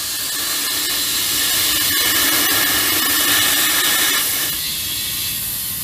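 Compressed air hissing steadily through an air chuck into a golf cart tyre as it is inflated. The hiss eases a little about four seconds in.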